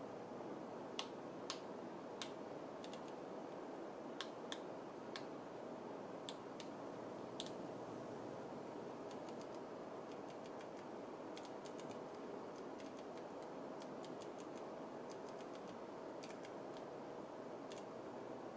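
Control dial of an Olympus OM-D E-M1 clicking through its detents as it is turned to adjust the Color Creator setting. Separate clicks come over the first several seconds, then quicker, fainter runs of clicks follow. A steady hiss with a faint steady tone sits underneath.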